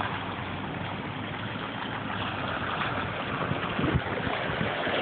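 Steady rushing noise of a river running full of broken ice, mixed with a vehicle rolling slowly across a wooden plank bridge, with a couple of low thumps about four seconds in.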